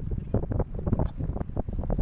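Wind buffeting the microphone on a small boat at sea: irregular low rumbling gusts and thumps several times a second.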